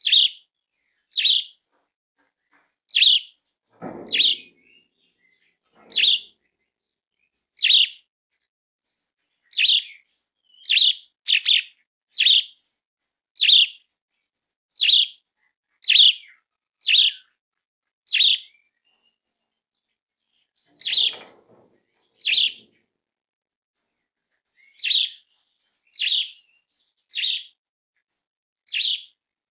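Asian pied starling (jalak suren) giving its loud, harsh calling note over and over, short sharp calls about once a second with a few brief pauses. Its call is the kind played to spur other jalak suren into singing. A faint low rustle comes twice, about four seconds in and again near twenty-one seconds.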